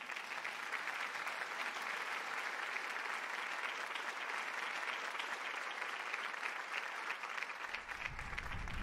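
Theatre audience applauding steadily, a dense patter of many hands clapping. A low rumble comes in near the end.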